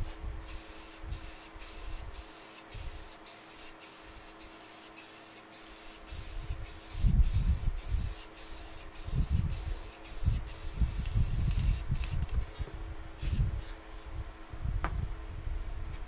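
Aerosol spray-paint can spraying red oxide paint in short hissing bursts, about two a second, for some twelve seconds, then a couple more bursts. Low bumps and knocks from about seven seconds in are the loudest sounds.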